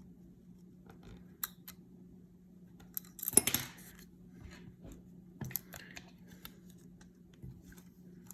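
Small clicks and rattles of a Ruger SR22 pistol's recoil spring, slide and frame being handled and fitted together during reassembly, with a louder cluster of clicks about three seconds in.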